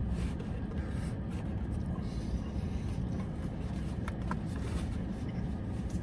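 Steady low rumble inside a car's cabin, with two faint clicks about four seconds in.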